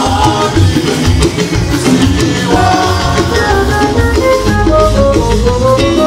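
Women's choir singing a hymn into microphones, backed by a drum kit and band.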